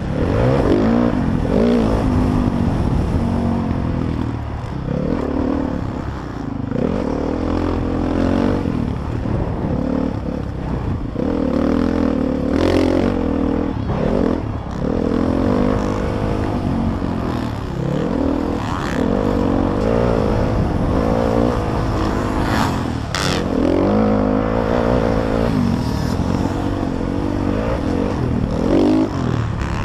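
Motocross bike engine revving hard and backing off over and over, its pitch climbing and dropping every second or two. A few sharp knocks come through near the middle and later on.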